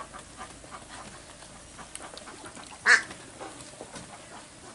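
A penned flock of brown domestic ducks quacking: soft scattered quacks throughout, with one loud quack about three seconds in.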